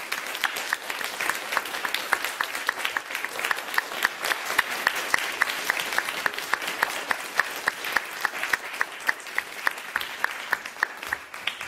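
Audience applauding, with one nearby pair of hands clapping steadily at about three claps a second above the rest. The applause thins out near the end.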